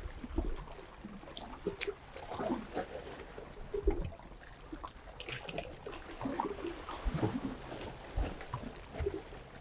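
Small waves lapping and splashing against shoreline rocks, in irregular little gurgles and splashes.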